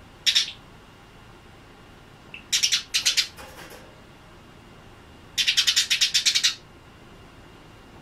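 Eurasian tree sparrow chirping: one short chirp at the start, a quick run of chirps about halfway through, then a fast chattering string of about a dozen chirps.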